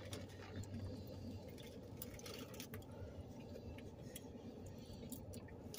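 Quiet eating sounds inside a car: chewing and faint clicks and rustles from foil-wrapped burritos and a fork, over a low steady hum.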